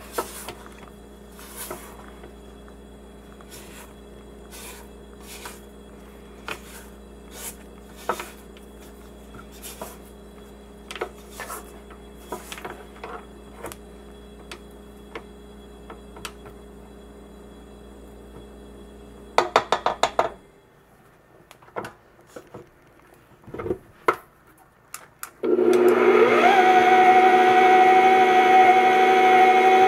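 Kenmore Elite bowl-lift stand mixer running steadily as its flat beater works crumbly cookie dough, with frequent taps and scrapes of a silicone spatula against the steel bowl. The hum stops about two-thirds of the way through, leaving a few knocks, and a loud sustained sound with a rising sweep at its start comes in near the end.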